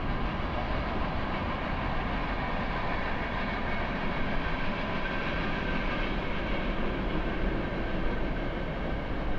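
Norfolk Southern freight train passing at about 55 mph: a steady, unbroken noise of wheels running on rail, with faint steady tones over it.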